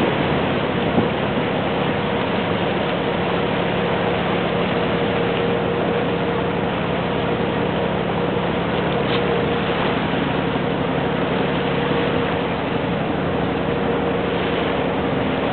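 A boat under way: a steady drone with water rushing past the hull.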